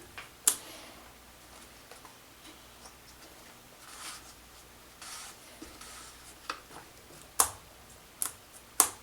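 Sharp clicks and light knocks of metal parts and tools being handled while an electric chainsaw is reassembled, with a soft scraping around the middle and most of the clicks in the last few seconds.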